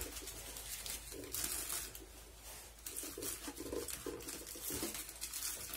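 Rustling and crinkling of packaged bandages being handled and pushed onto the shelf of a small first-aid cabinet made from a fire extinguisher, in irregular bursts with light knocks.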